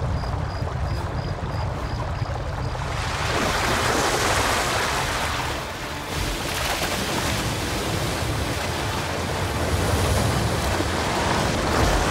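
Flash flood water rushing down a dry, rocky desert gully: a low rumble, then from about three seconds in a loud, steady rush of churning water.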